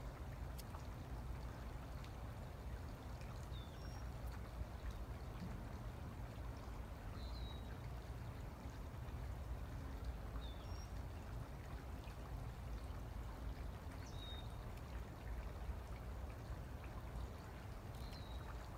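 Steady outdoor hiss and low rumble, with a bird giving short high chirps about six times, a few seconds apart.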